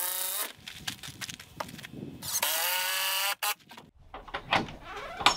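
Cordless drill driving screws into a wooden floor deck in two short runs, each rising in pitch as the motor spins up. The first ends about half a second in and the second runs for about a second from two and a half seconds in. A few light clicks follow, then a sharp knock near the end.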